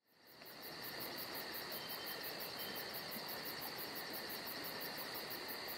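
Steady insect chorus of cricket-type trilling, fading in over the first second, with a quick, even pulsing high up.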